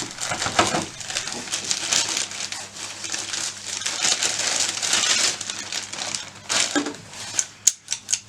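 Packaging being handled and unwrapped, with plastic and paper crinkling and rustling and a few sharp clicks near the end.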